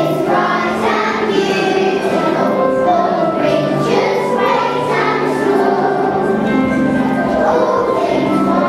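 A group of children singing a song together in unison, with sustained sung notes.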